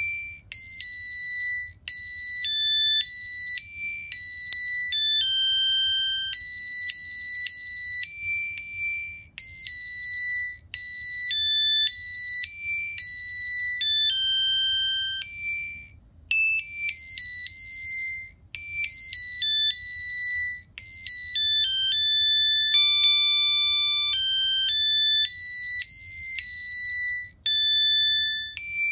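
Musical three-bell Christmas decoration playing a Christmas tune from its electronic sound chip: thin, high beeping notes one at a time, like a ringtone. About halfway through the tune stops briefly and another melody begins.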